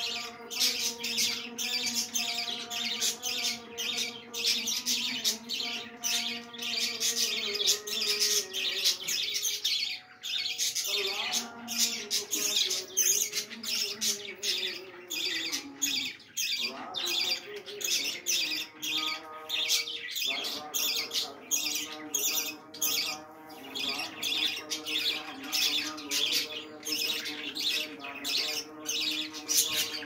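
A flock of budgerigars chattering and squawking in a constant stream of rapid short calls. Underneath runs a lower held tone that shifts pitch every few seconds.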